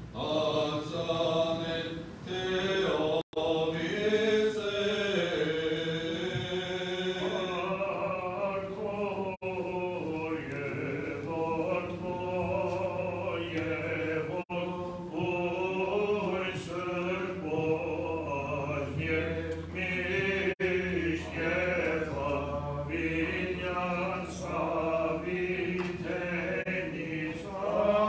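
Armenian Apostolic clergy chanting a liturgical hymn, with voices that glide between long, held notes.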